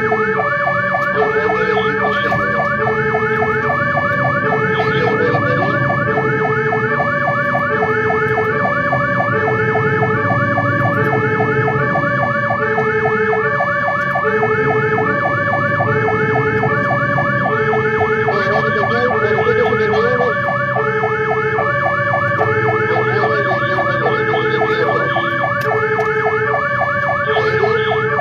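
Fire engine's sirens sounding continuously: a fast-warbling electronic wail together with a lower two-tone pattern that alternates about once a second. Underneath is the truck's engine, its pitch rising and falling with speed.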